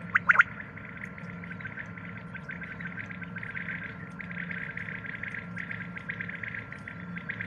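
Common quail calling: two sharp, loud notes just after the start, ending its liquid 'wet-my-lips' phrase. A long run of fainter rapid chattering and a steady thin tone follow behind it.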